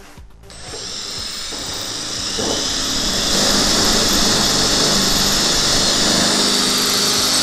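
Cordless drill running with a twist bit, drilling through the metal inner panel of a van's rear door. The sound builds over the first few seconds, then holds steady with a thin high whine.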